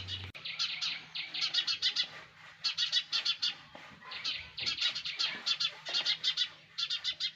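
Sparrow chicks in the nest chirping in quick runs of short, high chirps, with brief pauses between the runs.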